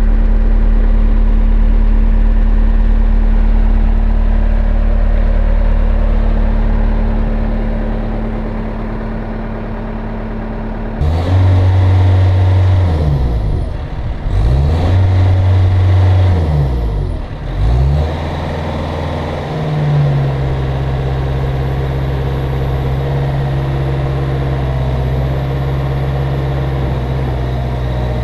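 Cat 236B3 skid steer's diesel engine running steadily, then speeding up about eleven seconds in; its pitch sags and recovers twice as it works, then it holds a steady higher speed.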